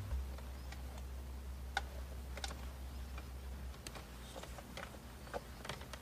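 Scattered small clicks and ticks of a USB charger cable and plastic dash trim being handled as the cable is fed through the centre dash, under a low steady hum that stops a little past halfway.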